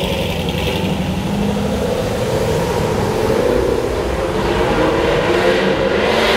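Supercharged V8 of a Vauxhall VXR8 Bathurst S accelerating hard away from a standstill. The exhaust note stays loud and steady.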